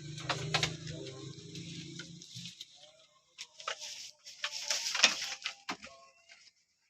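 Goat coughing after kidding: a run of short, harsh, noisy coughs, the loudest about five seconds in. A low steady hum with small clicks runs until about two and a half seconds in.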